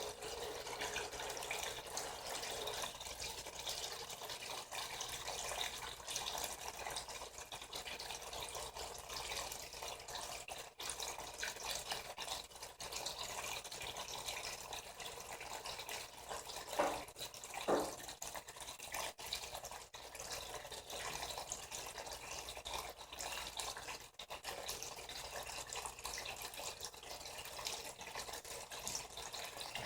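Water running steadily into the tub of a Frigidaire Gallery Series top-loading washing machine as it fills, with two brief louder sounds a little past the middle.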